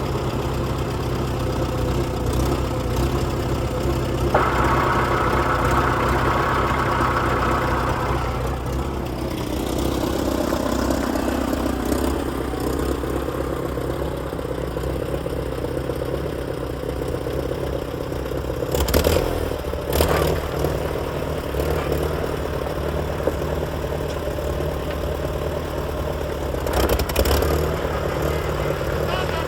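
1967 International Harvester 140 tractor's four-cylinder gasoline engine running steadily at idle. About four seconds in, a higher steady tone joins for about four seconds, and a few sharp knocks come near the end.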